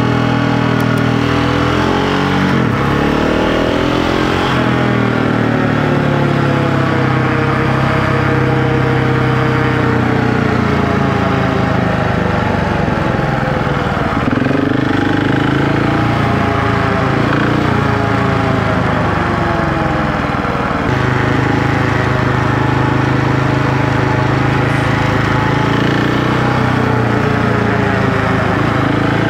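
Husqvarna 701 Enduro LR's single-cylinder engine running while riding, its note rising and falling as the bike speeds up and slows down.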